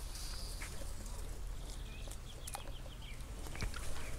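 Quiet riverbank background: a steady low rumble with a few faint clicks, and a short run of high bird chirps about two and a half seconds in.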